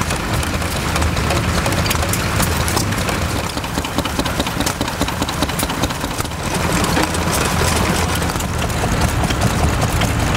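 Several vintage stationary engines running together, a steady low chugging mixed with irregular sharp clicks and knocks.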